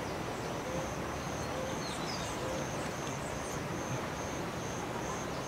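Outdoor ambience of insects: a high, short chirp repeats about twice a second over a steady hiss. A low hooting call repeats about once a second through the first half, then stops.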